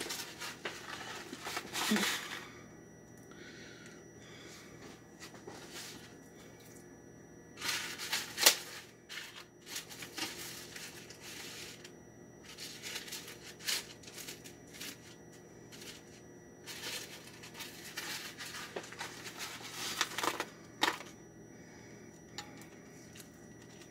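Hands rustling and crunching dry stuffing crumbs while pressing raw chicken breasts into the mix, in irregular bursts with a couple of sharp clicks, the loudest about eight and a half seconds in.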